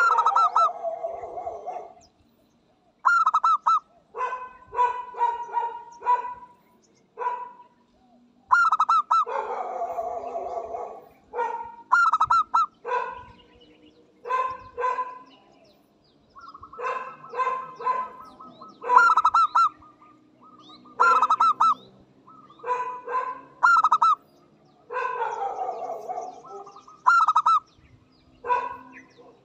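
Zebra dove singing: phrases of rapid, staccato cooing notes, repeated every two to three seconds.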